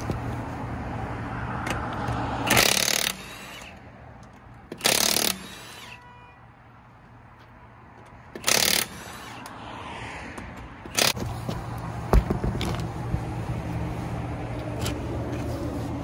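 Impact wrench running in four short bursts, spinning off the lug nuts on a pickup truck's wheel, over a low steady hum.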